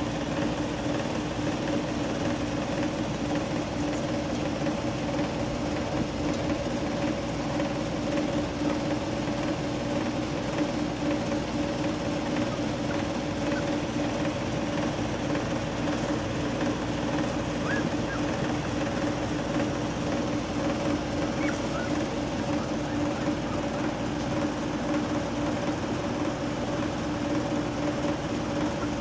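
A steady machine hum, a motor running without change, with a low drone and a higher tone held above it.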